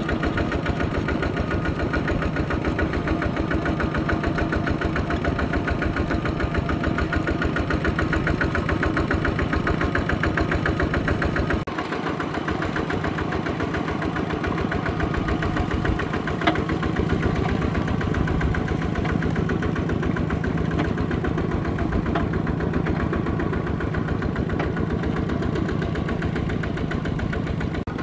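Two-wheel walking tractor's diesel engine running steadily with a fast, even chugging as it pulls a load through flooded paddy mud. About twelve seconds in the sound shifts and drops slightly.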